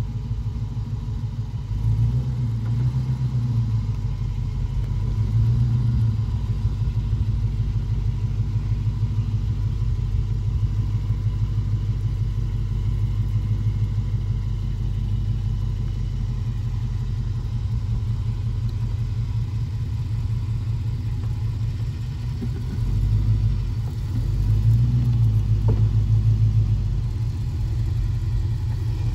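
1978 Ford Bronco's V8 engine running at low revs while the truck crawls over lava rock, the throttle rising briefly a few times, most strongly near the end.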